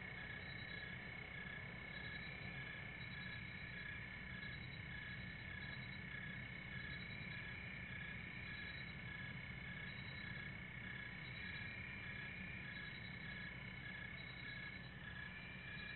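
Steady night chorus of crickets and frogs: continuous trills with chirps repeating several times a second, over a low steady rumble.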